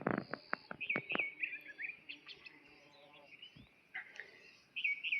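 Small birds chirping in short, repeated calls. A few sharp clicks come in the first second.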